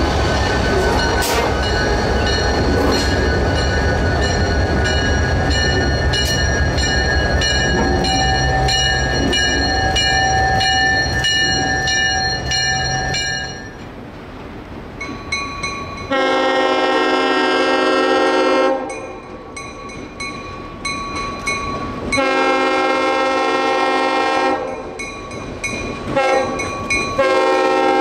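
A diesel locomotive idling close by, a steady deep engine rumble. After a cut, an approaching diesel locomotive sounds its multi-note air horn in the grade-crossing pattern: two long blasts, a short one, and a final long blast starting near the end.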